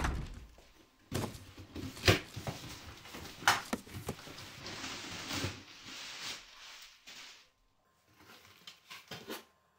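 Cardboard box being handled and opened on a wooden floor: a thump at the start, then knocks and scrapes of cardboard, a stretch of cardboard rustling and tearing, and a few sharp clicks near the end.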